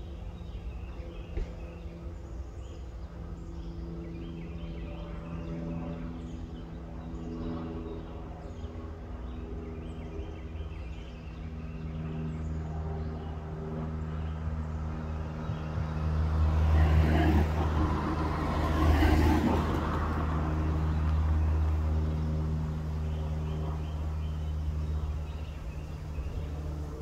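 An engine running steadily in a low drone, with birds chirping; about two-thirds of the way through, a louder rushing noise swells and fades.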